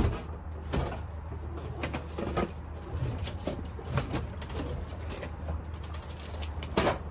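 A series of knocks and clunks from equipment being manhandled, loudest at the start and again near the end, over a steady low hum.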